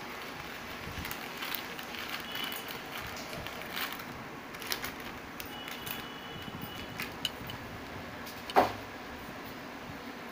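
Plastic snack packet crinkling in a child's hands in scattered small crackles and clicks, with one sharp knock about eight and a half seconds in.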